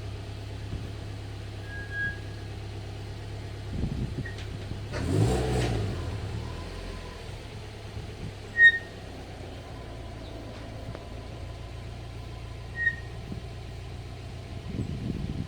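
Car with Endless MX72 brake pads rolling slowly, its engine running low throughout. The brakes give three short high-pitched squeals, the loudest about halfway through. The engine swells briefly about a third of the way in.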